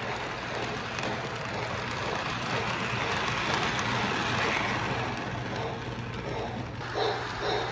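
Lionel model train running on its track: a steady whirring, rattling run with a low, even hum underneath.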